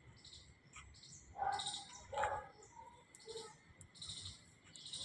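Small birds chirping over and over in short high bursts, with a faint steady high tone underneath. Two louder short sounds come near the middle.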